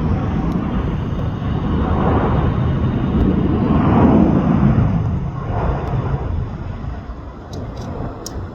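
Jet airliner engines roaring past, swelling to a peak about four seconds in and then fading away.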